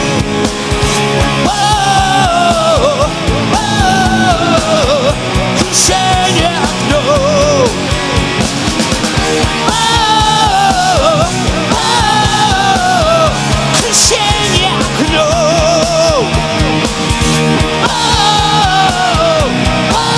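Heavy metal band playing live: a lead electric guitar line full of bends and vibrato over distorted rhythm guitar, bass guitar and fast drumming.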